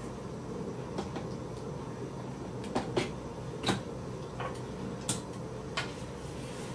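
Handling of a DSLR camera body and lens: a scattering of short, sharp clicks and light knocks, about seven of them, over a steady low hum.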